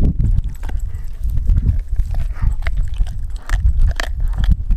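Doberman gnawing a frozen raw pig's foot: irregular wet chewing with many sharp clicks and crunches of teeth on bone and frozen meat.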